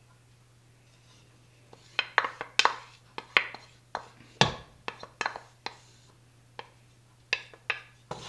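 Wooden spoon knocking and scraping against a ceramic bowl and a nonstick pot. There are about fifteen sharp, irregular clicks and knocks, starting about two seconds in.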